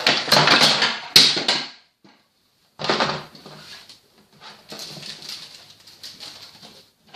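Rustling plastic packaging and clicking plastic toy parts being handled as a toy house playset is opened up, in several short bouts with a sharp click about a second in.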